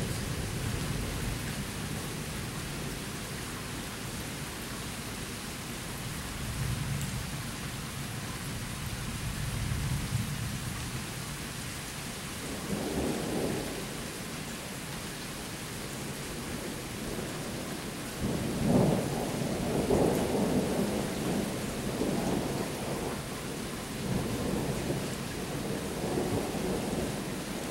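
Steady rain falling during a thunderstorm, with thunder rumbling low through the first ten seconds or so. A louder rumble comes about 13 seconds in, and longer, louder rolls of thunder run from about 18 seconds to near the end.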